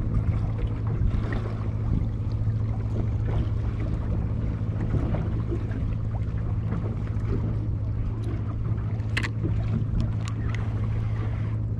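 Small fishing boat's engine running steadily with a low, even hum. A few sharp clicks come about nine to ten and a half seconds in.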